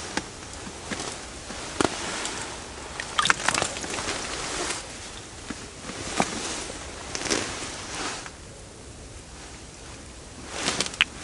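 Handling noises: rustling of winter clothing with scattered sharp clicks and knocks as a roach is lifted out of an ice hole and held. The noises grow quieter about eight seconds in.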